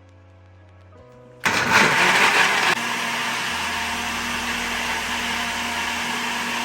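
An electric blender starts about a second and a half in. It runs loud and rough for a second or so, then settles into a steady whir and cuts off suddenly at the end.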